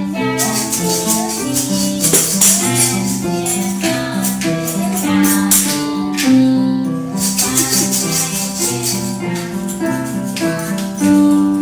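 Digital piano playing a simple melody with chords, with toddlers shaking maracas along in an uneven rattle.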